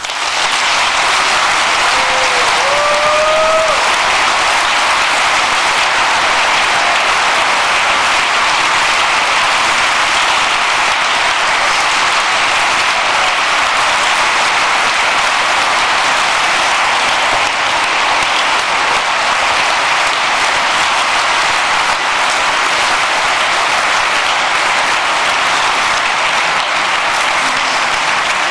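Audience in a large hall applauding steadily, starting abruptly, with a brief rising call from someone in the crowd about two seconds in.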